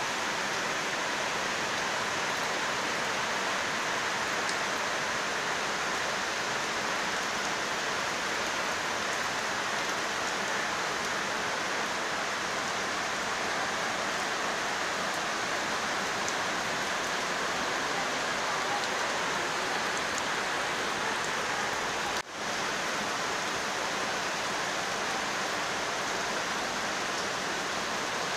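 Heavy monsoon rain pouring down, a dense steady hiss, broken only by a momentary dropout about three-quarters of the way through.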